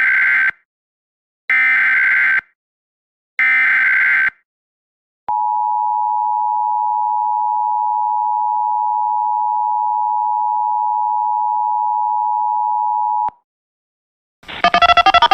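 Emergency Alert System activation: three short SAME header data bursts, a warbling pair of high tones repeated about two seconds apart, then the EAS two-tone attention signal (853 and 960 Hz) held steady for about eight seconds and cut off abruptly. A short burst of another sound follows near the end.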